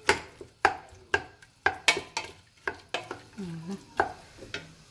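Spoon stirring meat and onion in oil in a cooking pot, knocking against the pot about twice a second, with the meat and onion sizzling.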